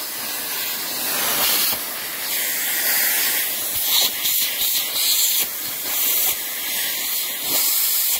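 Strong vacuum suction pulling air through a Sapphire Scientific upholstery tool's head against mattress fabric: a loud steady hiss that swells and dips every second or so.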